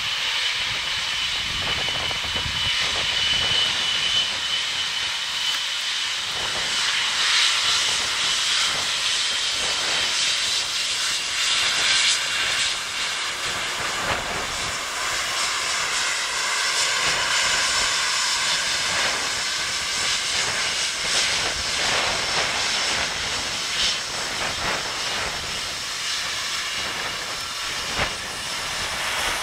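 Boeing 777's twin GE90 turbofan engines at taxi power as the jet rolls past: a steady rushing hiss with a high whining tone.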